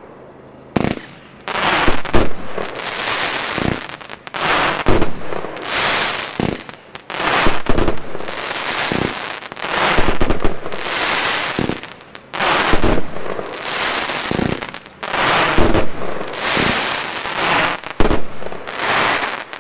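Wolff Artillery 120-shot compound firework cake firing: shots launching in quick succession, each followed by a bursting shell, about one burst a second. The last burst comes just before the end.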